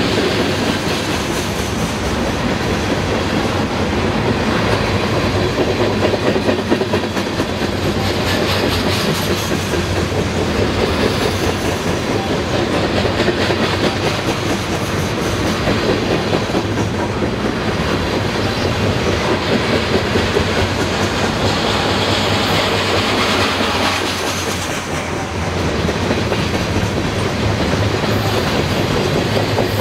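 Freight train of green container-loaded flatcars rolling past at speed: a steady, loud rumble of steel wheels on rail, with a fast, continuous clicking from the wheels.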